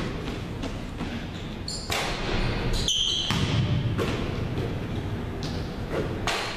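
A basketball bouncing on a hardwood gym floor as players dribble and shoot layups, a few irregular thuds echoing through the gym.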